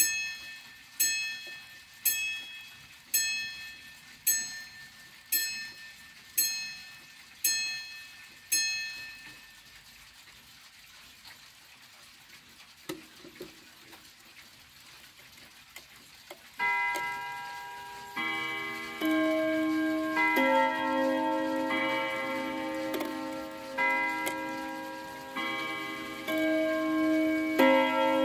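1966 Hermle mantel clock sounding on its steel chime rods. It opens with a hammer striking one rod about once a second, nine even strokes that end about nine seconds in. The movement then ticks faintly, and from about seventeen seconds in the hammers play a chime melody across several rods, each note ringing on.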